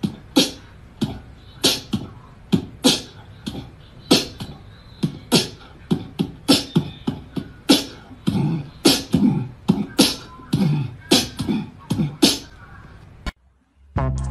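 A run of sharp percussive hits, about two to three a second in an uneven beat, with heavier low thuds in the later part. It cuts off abruptly near the end.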